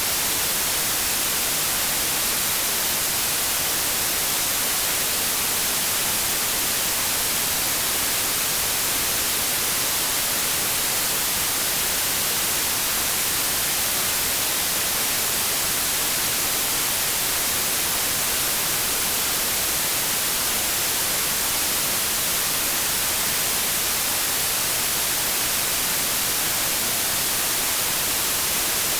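Television static: the steady, even hiss of a TV tuned to a channel with no signal, white noise that is strongest in the treble and does not change.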